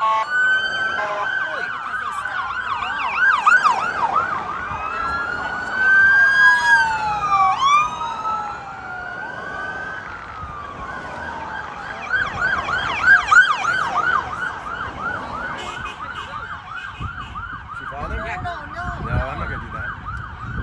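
Several police sirens sounding at once, slow rising-and-falling wails overlapping fast yelping sweeps. In the second half they settle into a steady rapid yelp.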